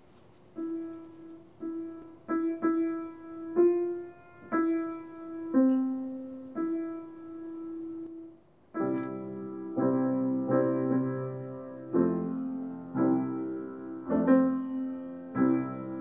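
Grand piano being played: a slow line of single struck notes, each ringing and dying away, then about nine seconds in the texture fills out with fuller chords and lower bass notes.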